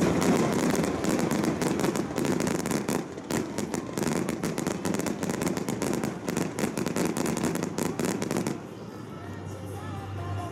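Aerial fireworks crackling, a dense rapid run of sharp pops that stops about eight and a half seconds in, leaving faint background music.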